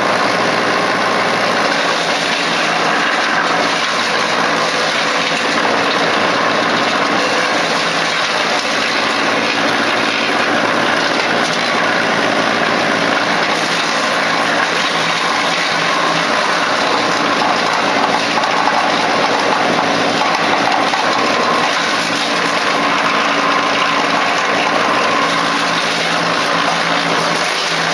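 Euroking PTO wood chipper running steadily off a tractor's power take-off, a constant loud mechanical drone with an even hiss and no pauses.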